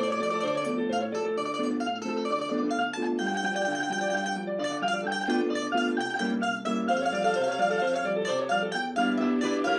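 Two domras playing a melody together in duet, with plucked and held notes running continuously.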